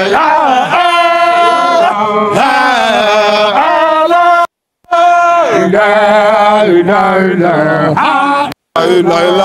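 A group of Baye Fall men chanting a zikr together in the Same Fall style, with long held, ornamented notes and no drums. The sound cuts out completely for a moment twice, about halfway and near the end.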